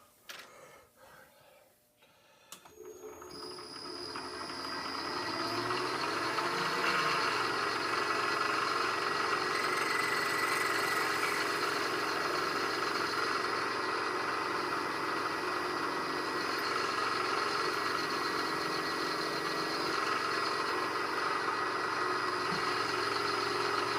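A machine tool's spindle motor starting up, speeding up over a few seconds and then running steadily with an even whine.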